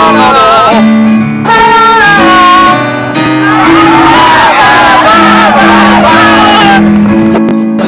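A song: voices singing a melody over steady sustained backing chords.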